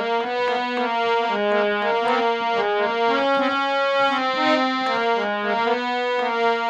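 Harmonium playing the melody of a Hindi devotional song (bhajan) alone, a run of held reed notes stepping up and down a few times a second.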